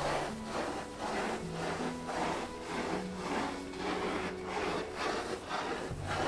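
Rhythmic rasping strokes, between two and three a second, like sawing or scraping, over soft background music.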